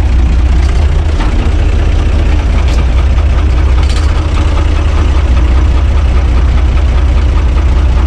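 UTB 445 tractor's diesel engine idling steadily, heard from inside the cab.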